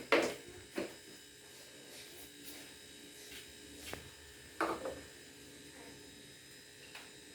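A few sharp knocks, the loudest just after the start and another about four and a half seconds in, each ringing briefly, with softer clicks between them over a faint steady hum.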